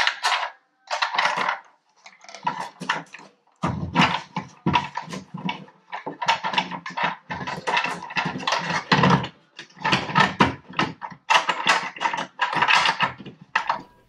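Plastic recessed TV outlet box scraping and knocking against the cut edges of a drywall hole as it is pushed in by hand, in a string of irregular scrapes with short pauses.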